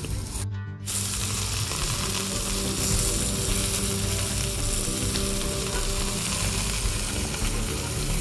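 Beef burger patties sizzling on a cast-iron grill grate over hot charcoal: a steady hiss, broken by a short gap about half a second in.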